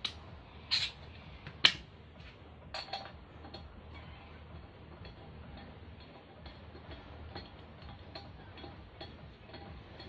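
A few sharp metal clinks and knocks in the first three seconds, the loudest about one and a half seconds in, then scattered faint ticks: a steel bar being handled and set down and the engine's drive pulley being worked loose by hand.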